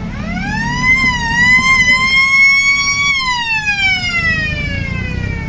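A siren wails: it rises over about a second, holds with a slight wobble, then falls slowly in pitch over the last couple of seconds. Motorcycle and trike engines run low underneath.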